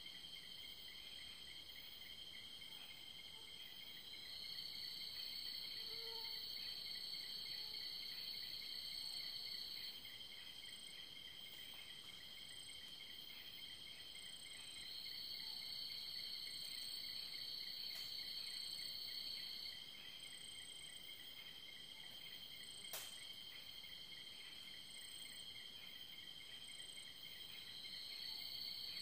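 Night insect chorus: crickets trilling steadily, with a faster pulsing trill underneath, and another insect's buzz that swells in for about five seconds at a time, three times. One faint sharp click comes about two-thirds of the way through.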